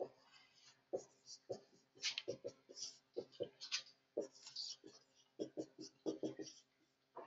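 Dry-erase marker writing on a whiteboard: a quick run of short squeaky strokes and small taps as symbols are drawn, over a faint steady room hum.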